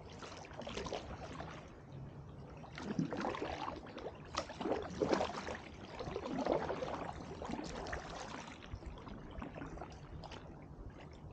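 Kayak paddle blades dipping and pulling through the water, a run of irregular splashes and drips that eases off near the end.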